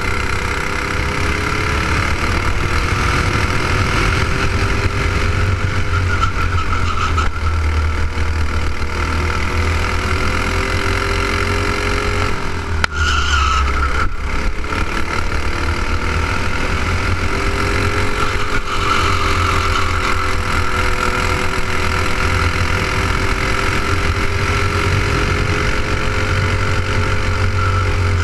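Onboard sound of a racing kart's single-cylinder four-stroke clone engine running hard, its pitch rising and falling as the kart brakes and accelerates through the corners. About 13 seconds in the sound briefly drops and changes before the engine picks up again.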